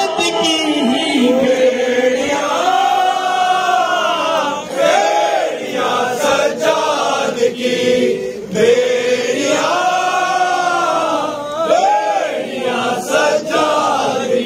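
Noha, a Shia mourning lament, chanted by men's voices together in long rising-and-falling phrases.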